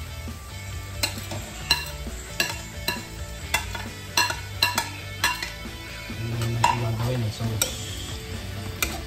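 A metal spoon stirring and scraping sliced onions in a black wok, knocking against the pan a little more than once a second, while the onions sizzle as they sauté.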